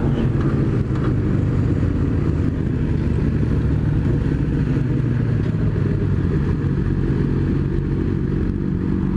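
2008 Yamaha R6 sport bike's engine running steadily while riding, with wind noise on the microphone.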